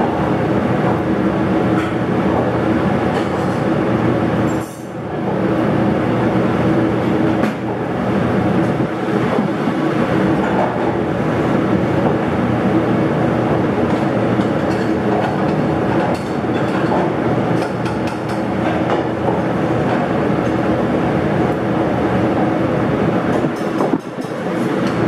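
Commercial kitchen exhaust hood fan running, a loud steady rushing hum, with two brief dips in level about five seconds in and near the end.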